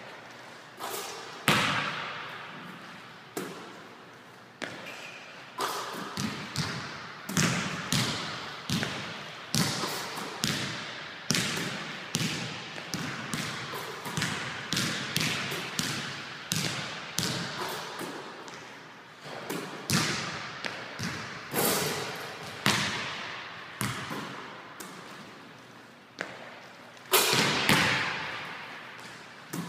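Basketballs bouncing on a hardwood gym floor: a steady run of irregular thuds, each echoing off the walls and ceiling, with a few louder bangs among them.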